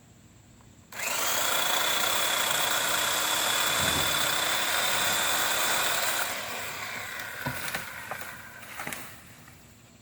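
Worx electric chainsaw starting instantly at full speed with a steady high whine about a second in, running evenly for about five seconds, then dropping off with crackling before stopping near the end.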